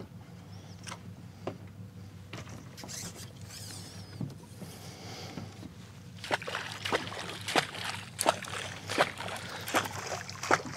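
A boat engine idles low and steady underneath. From about six seconds in, the water is splashed again and again, roughly two sharp splashes a second: commotion made at the surface to draw bigger fish up.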